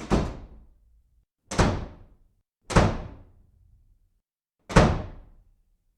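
Four heavy thuds, unevenly spaced, each dying away within about a second.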